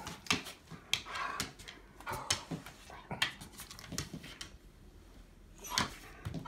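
A husky making short whimpering and huffing noises, with scattered sharp clicks and knocks.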